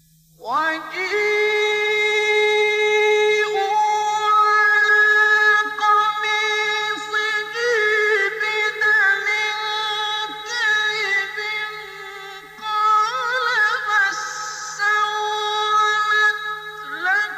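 Male Quran reciter chanting in the melodic mujawwad style: a long melismatic phrase begins about half a second in, held on sustained notes with ornamented turns, and a new phrase rises near the end. A steady low hum from the old recording runs underneath.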